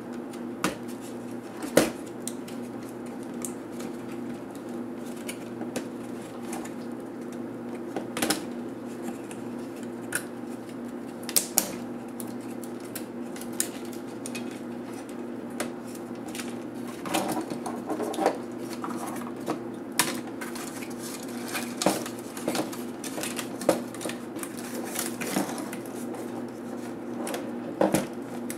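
Scattered clicks and clacks of hands handling the plastic and metal parts of a Lenovo T500 laptop being taken apart, over a steady low hum.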